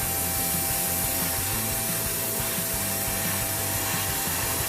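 Airbrush spraying paint: a steady air hiss, with a constant hum from the compressor underneath.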